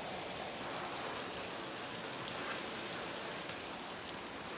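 Garden sprinkler spraying water, a steady hiss of falling spray with light spattering; the sprinkler is leaking at a fitting.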